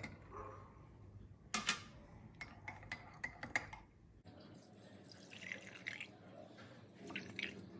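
A spoon stirring in a cup of warm herbal drink, giving a scatter of faint light clinks and small liquid sounds, most of the clinks in the first half.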